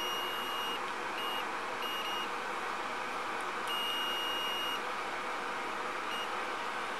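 Digital multimeter on its continuity range giving a string of high beeps of uneven length as the probes make and break contact with the pins of a removed N-channel MOSFET. The longest beep lasts about a second, near the middle. The beeps mean the meter is finding a short between the pins: the MOSFET has failed shorted. A steady hiss runs underneath.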